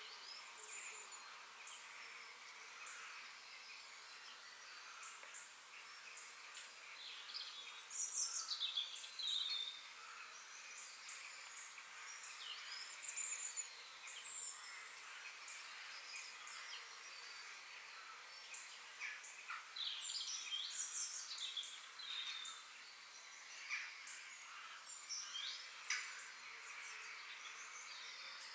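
Forest ambience with several songbirds chirping and singing over a steady high hiss of insects. Bursts of quick chirps and falling whistles come and go, busiest about eight seconds in and again around twenty seconds in.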